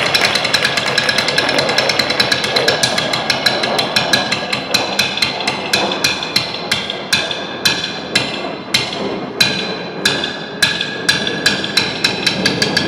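Drumsticks striking wooden stools in a drumline chair-show routine: rapid dense clicking at first, thinning to sharp, evenly spaced wooden strikes about two a second in the second half.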